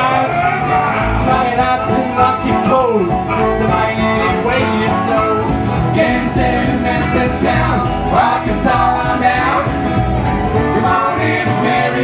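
Bluegrass band playing an instrumental break between verses: acoustic guitar, banjo and upright bass, with a lead melody full of sliding, bending notes.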